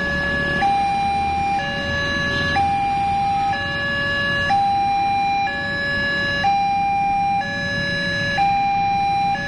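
Railway level-crossing warning alarm sounding: an electronic two-tone, a low note and a higher note alternating, each held about a second, over a low rumble.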